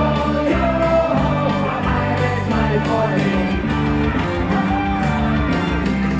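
Live rock band playing, with guitars.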